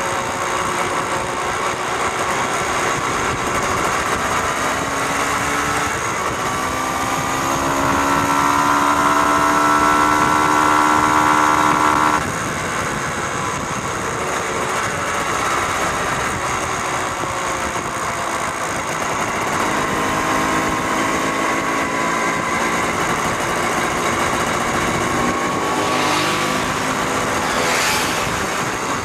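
Small motorcycle engines running on the move with wind noise; the engine note climbs in pitch and gets louder from about six seconds in, then drops off suddenly about twelve seconds in, and climbs again later. Two short rushes of noise come near the end.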